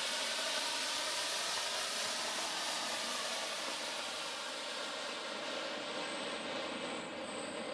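Flower-pot fountain firework (a 'colour kothi' pookutti) spraying sparks with a steady hiss that thins out near the end as it burns down.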